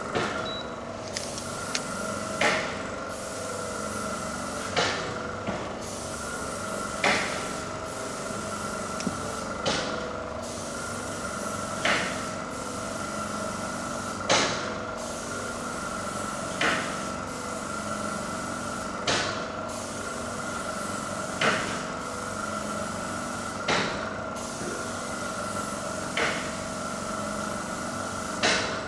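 Chain-hung swinging bowl knocking in a steady rhythm, a sharp clank about every two and a half seconds as it swings back and forth, over a steady hum.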